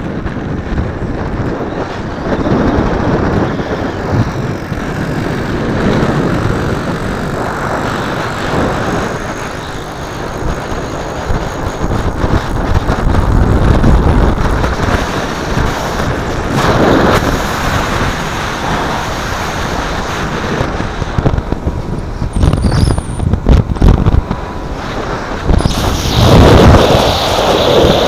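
Single-cylinder two-stroke WSK motorcycle engine running while riding, under heavy wind noise on the microphone. Near the end come loud, choppy buffeting bursts.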